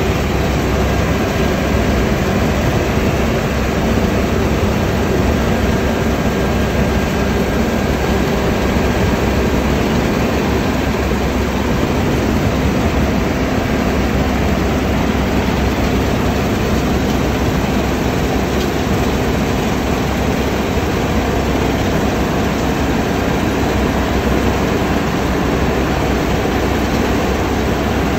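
Steady, unbroken machine noise with a faint low hum, as of heavy machinery running at a constant speed.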